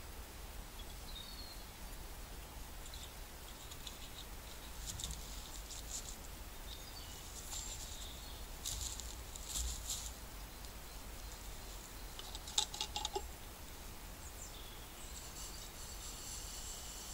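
Small wood fire crackling with scattered snaps inside an IKEA hobo stove, with a few quick clusters of snaps. Near the end, a steady trickle of water being poured from a steel bottle into the metal pot on the stove.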